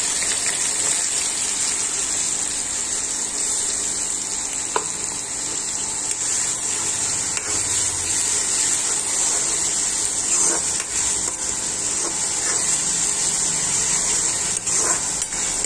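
Finely chopped onion and green chilli sizzling steadily in hot oil in a metal kadhai, with a spoon now and then clicking against the pan as it is stirred.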